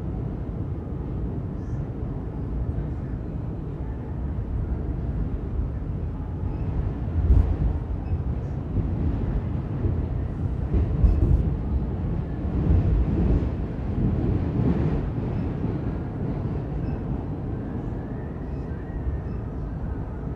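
Interior running noise of an R46 subway car: a steady low rumble of wheels on rail. Heavier thumps and clatter come in the middle stretch, then the noise eases off near the end as the train runs into a station.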